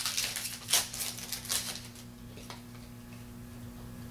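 Trading cards being handled and flipped through by hand: a few quick sliding swipes in the first couple of seconds, then quieter, over a steady low hum.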